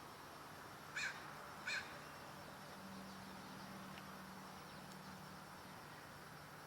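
Crow cawing twice, two short calls less than a second apart, against faint outdoor background hiss.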